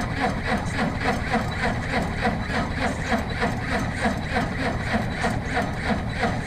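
A heavy engine turning with a steady, fast, even beat that holds unchanged throughout.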